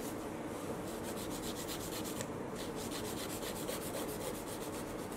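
Hand nail file rasping back and forth along the sides of a gel nail extension in quick, even strokes, shaping the sidewalls.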